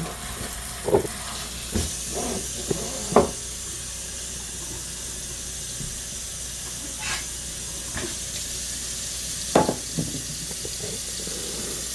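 Water running from a kitchen tap into a pot of black-eyed peas being rinsed, over a steady hiss. A few short knocks and clinks of the pot or bowl come through, the loudest about three seconds in and again near ten seconds.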